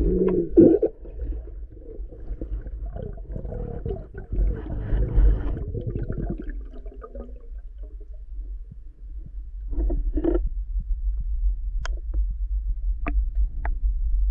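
Underwater sound heard through a submerged camera: a steady low muffled rumble, with water and movement noise from the swimming spearfisher for the first few seconds. A few sharp clicks come near the end.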